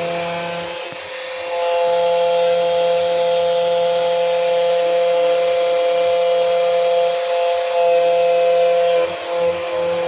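Xtool Anycut KNC 91 automatic key cutting machine running its cutter through a hard brass key blank: a steady whine with a grinding rasp. It dips briefly about a second in and again near the end.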